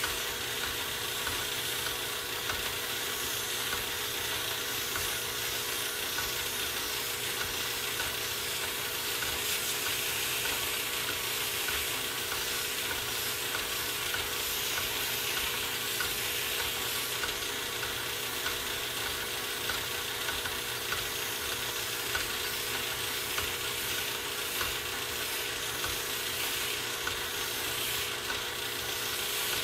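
Metal lathe running with a steady hum while dry 800-grit sandpaper is held against the spinning metal shaft, giving a continuous even hiss as the shaft is polished smooth.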